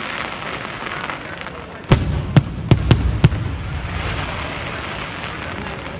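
Fireworks going off overhead: five sharp bangs in quick succession, starting about two seconds in, with the first one loudest, over a steady background hiss.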